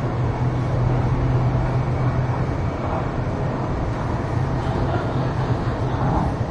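Steady interior noise inside an MTR East Rail Line train carriage: a broad rumble with a low steady hum.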